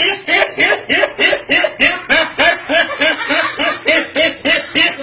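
A person's voice making rapid, evenly spaced pulsed sounds, about four a second, each one a short rise and fall in pitch, like a snickering laugh or a comic vocal imitation.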